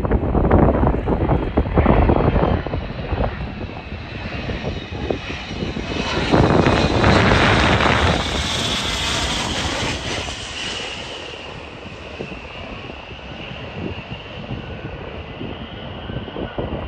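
An airliner passing close by. Its engines swell to a loud roar about six seconds in and fade away with a whine that falls in pitch. Strong gusts of wind buffet the microphone in the first few seconds.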